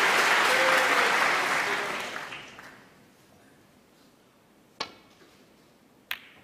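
Audience applause that fades out over the first three seconds. Then two sharp clicks: a snooker cue tip striking the cue ball, and about a second later the cue ball hitting a red at the pack.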